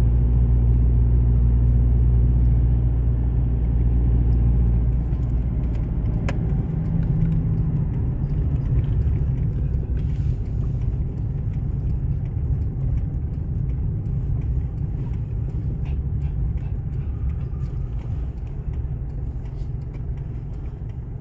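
Car engine and tyre noise heard from inside the cabin while driving: a continuous low rumble that grows gradually quieter over the second half.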